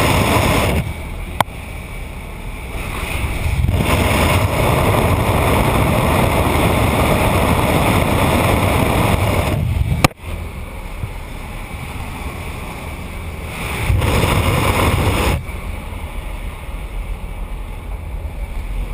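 Wind rushing past the open door of a jump aircraft in flight, mixed with the aircraft's engine noise on the camera microphone. The noise swells and drops several times, with a sharp click about a second and a half in and a louder snap about ten seconds in.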